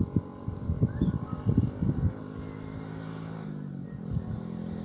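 An engine hums steadily in the background, with uneven low rumbles over it in the first two seconds and again briefly near the end.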